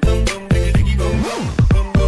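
Electronic music with a heavy bass beat and sliding bass notes.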